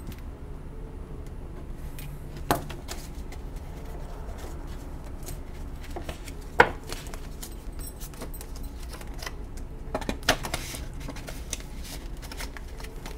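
Paper banknotes being handled by hand: a stack of dollar bills squared and slid into a paper cash envelope, soft rustling with a few sharp taps, the loudest about two-thirds of the way through, over a low steady hum.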